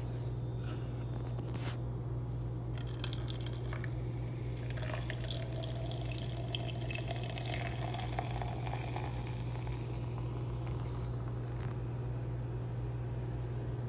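Beer poured from a bottle into a glass, splashing and fizzing, starting about three seconds in; a faint rising tone as the glass fills, then the foam fizzing more softly. A steady low hum underneath.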